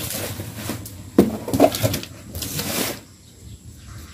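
Cardboard box being handled and cut open: rustling and scraping of cardboard and paper with a few sharp knocks, quieter near the end.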